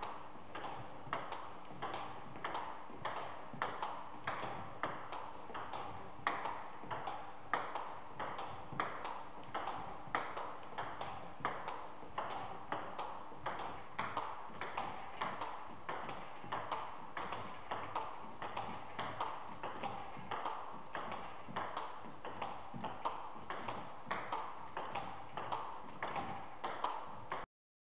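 Table tennis ball clicking against the bats and table in a steady backhand push rally, a few strikes a second. The clicking cuts off abruptly near the end.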